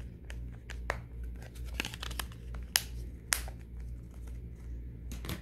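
Scattered plastic clicks and taps of phone parts being handled, the battery and snap-on back cover going back onto an LG Optimus V, with two sharper clicks near the middle.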